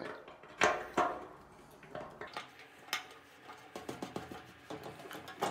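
Light metallic clinks and knocks from a chrome shower-door handle post being screwed together by hand against the glass panel, the two loudest about half a second and a second in, then fainter ones scattered after.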